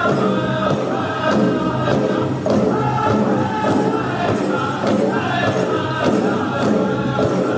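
Powwow drum group singing a chicken dance contest song together over a steady, even drumbeat.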